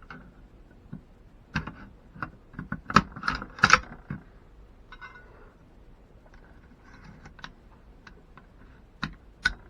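Metal clicks and knocks of an AK-pattern rifle's parts being slid back together and seated during reassembly. A quick run of sharp clicks comes in the first few seconds, then a couple more near the end.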